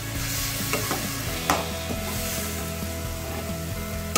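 Onion, tomato and dried-fish masala sizzling in oil in a non-stick kadai while a spatula stirs it. A few sharp knocks of the spatula against the pan, the loudest about a second and a half in.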